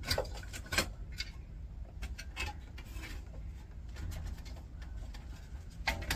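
Irregular sharp clicks and light clinks of metal parts and the sheet-steel computer tower case being handled, over a low steady hum.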